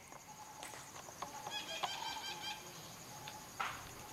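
A steady high chorus of insects, with a bird calling in a quick series of short notes about halfway through. A few sharp knocks or rustles sound over it, the loudest a short burst near the end.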